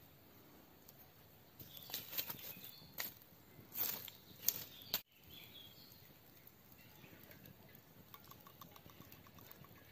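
Glowing embers of an open wood fire being raked and poked with a metal rod: a few seconds of irregular scraping and crackling clicks. Then a faint steady hiss of the fire, with a short rapid run of faint ticks near the end.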